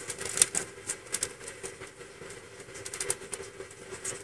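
Kittens suckling at their mother cat: irregular soft clicks and smacks, over a steady faint hum.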